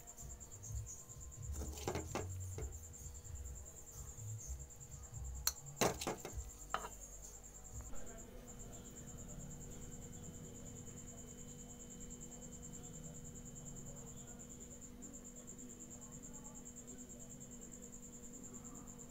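A steel ladle clinks against steel cookware a few sharp times in the first seven seconds while pasta is served into a steel bowl. Under it a cricket trills steadily and high-pitched, and a low steady hum comes in about eight seconds in.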